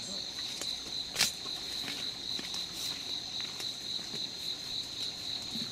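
Insects trilling steadily in a high, even tone, with scattered short clicks and rustles of hands working in shallow water. The loudest click comes about a second in.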